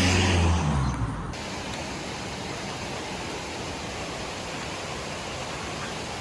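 Steady rushing of a mountain river, an even hiss of running water. A low droning hum is heard at first and cuts off abruptly about a second in.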